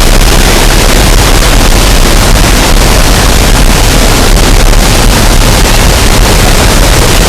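Waterfall: falling water rushing loudly and steadily at close range.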